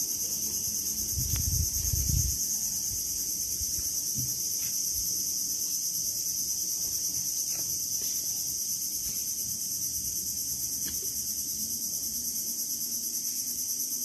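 Chorus of crickets: a steady, shrill high-pitched trill with a fast, even pulse. A brief low rumble comes about a second in.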